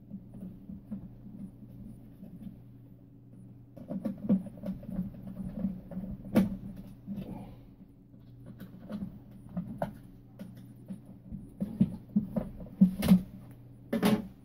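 Handling noises from the Philips 22RB212 transistor radio's case and chassis as it is worked on by hand: scattered clicks, knocks and scrapes, with a sharp louder knock about six seconds in and a few more near the end, over a steady low hum.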